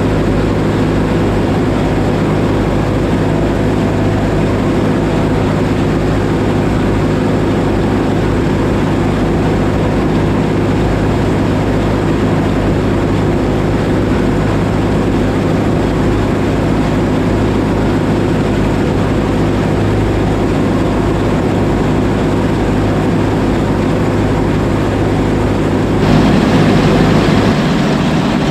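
Oliver 7300 combine running steadily in the wheat, a loud, even machine hum with a constant low drone. Near the end the sound turns brighter and a little louder, and the deep drone drops away.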